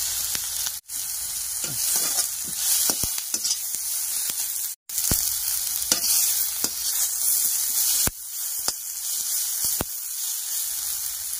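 Vegetables sizzling on a high flame in a kadhai while a perforated steel spatula tosses them, its edge clicking and scraping against the pan. The sound cuts out for a moment twice.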